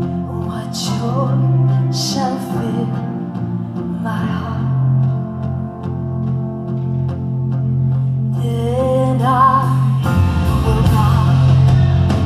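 A woman singing live into a handheld microphone over sustained instrumental accompaniment. The voice drops out in the middle and comes back about two-thirds of the way through, and fuller accompaniment with a deeper low end enters near the end.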